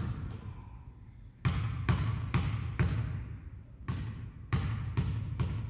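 Basketball bounced repeatedly on a hardwood gym floor, a free-throw shooter's dribbles before the shot. The bounces start about a second and a half in and come roughly twice a second, each echoing in the gym.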